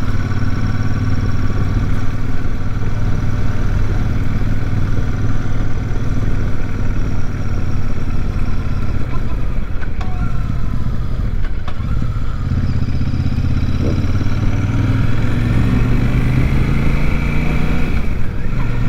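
Royal Enfield Super Meteor 650's 648 cc parallel-twin engine running steadily under way, heard from the handlebars. About two-thirds of the way through, its note drops, then climbs again as the bike pulls on.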